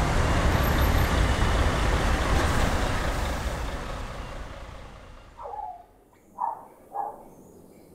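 Road traffic noise, steady and heaviest in the low end, fading out over several seconds; then three short chirps near the end.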